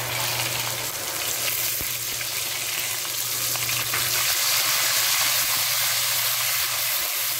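Freshly added ground tomatoes sizzling in hot oil in a non-stick wok: a steady frying hiss while a spatula stirs them.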